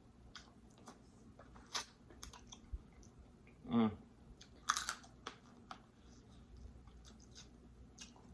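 Close-miked eating of snow crab legs: scattered clicks and cracks of shell and wet chewing. A brief hum comes just before four seconds in, and a louder sharp noise just under five seconds in.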